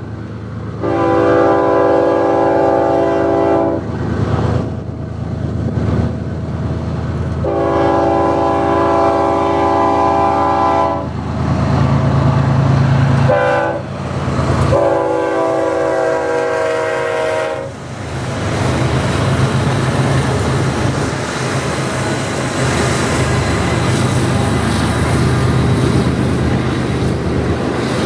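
BNSF diesel freight locomotive's multi-tone air horn sounding four blasts, long, long, short, long, as the train approaches. Then the lead locomotives' diesel engines run past, followed by the steady rolling clatter of double-stack intermodal cars on the rails.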